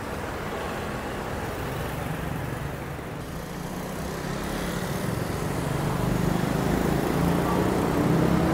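Road traffic running past: a steady hum of engines and tyres that swells louder over the second half as vehicles come closer.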